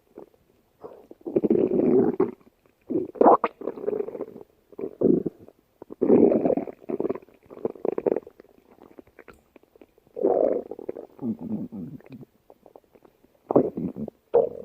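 A hungry person's stomach growling, in irregular bouts of rumbling every second or two, some long and some short, with short gaps between and a few sharp crackles.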